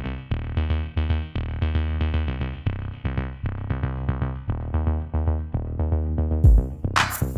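Electronic background music: repeating synthesizer notes over a drum-machine beat, with a kick drum and cymbal hits coming in near the end.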